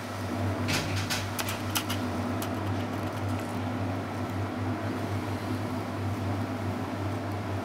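A steady low hum, with a quick run of sharp clicks and taps between about one and two and a half seconds in.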